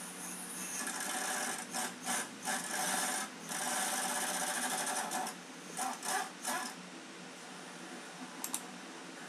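Impact gun hammering on rusted, penetrating-oil-soaked exhaust front-pipe flange bolts of a Chevy 5.3L V8 truck, in a string of bursts: runs of one to two seconds and several short trigger blips. The bolts are rust-seized, and not all of them break free.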